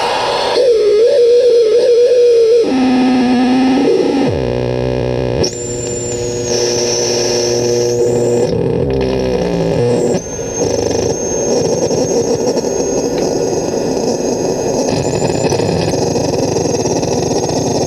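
Homemade crystal-radio noise synth putting out distorted noise and buzzing tones that change as its knobs are turned: a wavering tone, a step down to a lower one, a falling glide, a stretch of steady buzzy chords, then from about ten seconds in a dense hiss with a thin high whistle on top.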